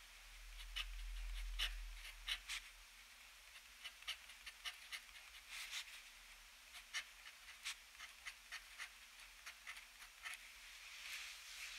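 The extra-fine steel nib of a TWSBI ECO fountain pen scratching across paper in quick, short strokes as small Japanese characters are written, with brief pauses between strokes. A faint low rumble swells and fades in the first couple of seconds.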